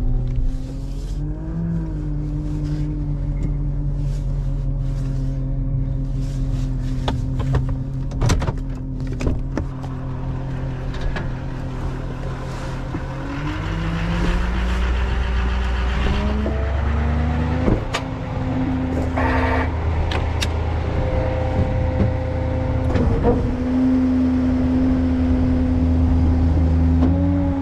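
Duramax diesel engine of a tow truck idling steadily, then about halfway through rising in speed and holding at a higher, steady idle. Scattered clunks and knocks from the door and from moving about the truck.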